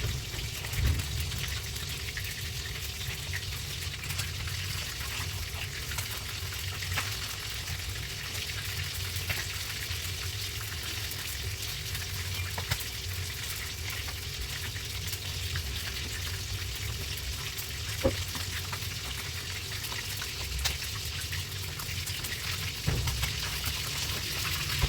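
Food frying in a pan with a steady sizzle, broken by a few sharp clicks.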